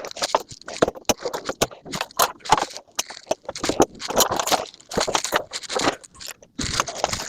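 Irregular scraping and sharp knocking, many short hits close together, as of scrap metal being handled and dragged.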